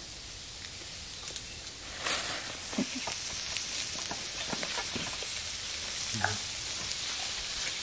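Salt fish sizzling steadily as it roasts on a zinc sheet over a charcoal fire. From about two seconds in there are light scrapes and taps of a knife against the fish and metal.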